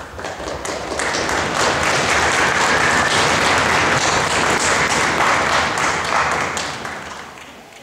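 Audience applauding in a hall: the clapping builds about a second in, holds steady, and fades away near the end.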